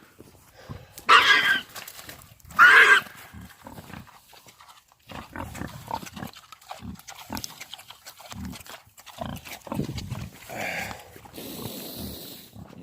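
Farm animal calling: two loud, harsh calls about a second and a half apart near the start, followed by quieter low grunting and shuffling.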